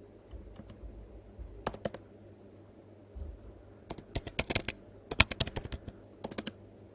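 Typing on a computer keyboard: two or three keystrokes about a second and a half in, then quick runs of keypresses from about four seconds in.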